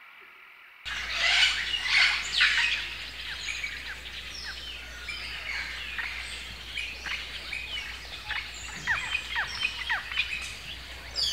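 Birds chirping: many short, quick calls that drop in pitch, busiest near the start and again toward the end, over a low steady hum. It starts abruptly about a second in and cuts off suddenly at the end.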